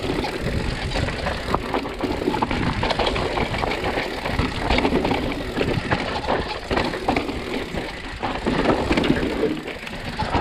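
Mountain bike riding over a rough gravel and rock trail, heard from a camera on the bike: tyres on loose stones, and the bike rattling and knocking constantly over bumps, over a steady low rumble.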